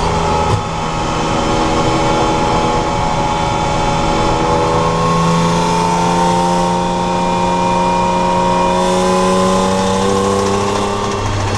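BMW Compact's engine running under steady load, its pitch climbing slowly over several seconds and dropping back near the end, with one sharp click about half a second in.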